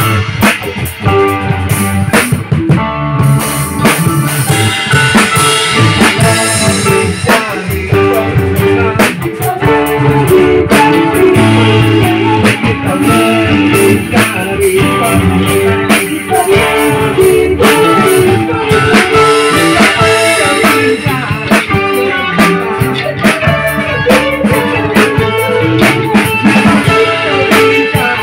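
A live band playing a worship song together with a steady beat: drum kit with cymbals, electric bass, electric guitar and keyboard.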